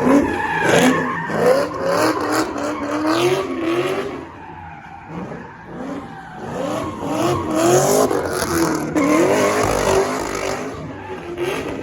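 A car spinning donuts: the engine revs up and down over and over while the tires squeal. It eases off for a couple of seconds around four seconds in, then revs hard again.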